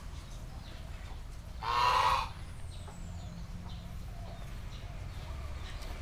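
A domestic goose gives one loud, brief honk about two seconds in, over a steady low rumble.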